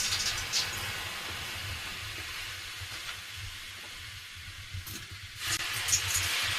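Water thrown onto hot sauna stove stones, hissing and sizzling into steam; the hiss starts suddenly, slowly fades, and flares up again a little after five seconds in with a second pour.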